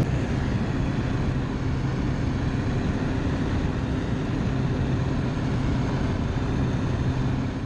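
Steady drone of a small high-wing propeller plane's engine and propeller in flight, with rushing air, heard from inside the cabin.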